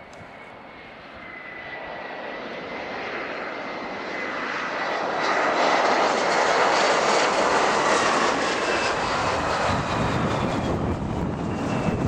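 Turbofan engines (GE CF34-8E) of an Embraer ERJ-170 on landing approach with gear down, growing louder as it passes close overhead, with a steady high whine that falls slightly in pitch. A low rumble joins about ten seconds in.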